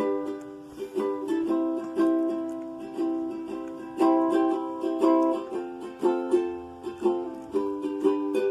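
Acoustic nylon-string guitar (violão) being played: plucked notes and chords, each ringing and fading before the next.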